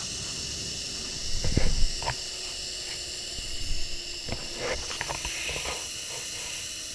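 Zip-line trolley pulleys running along the steel cable, a steady high hiss with a faint whine, mixed with wind rushing past. Short gusts buffet the microphone about a second and a half in and again around four to five seconds.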